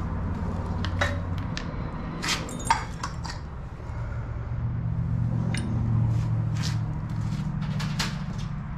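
Scattered metallic clinks and taps of small metal parts and tools being handled and set down, the sharpest about two and a half seconds in, over a steady low hum.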